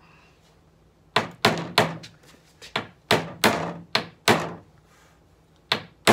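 Steel hammer tapping a cut-down, filed nail into the end of a pine board, setting it into the wood: a series of sharp strikes, three quick ones about a second in, then a run of about five, and another near the end.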